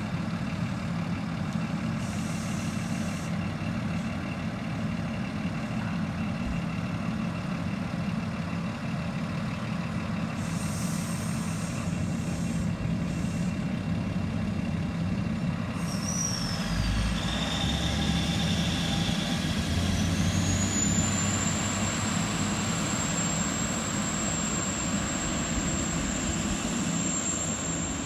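Endeavour diesel railcar idling at the platform with a steady low hum. About two-thirds of the way through, a high whine rises and then holds as the railcar's engines pick up to pull away.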